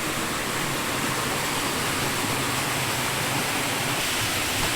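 Flowing river water: a steady, even rush with no breaks.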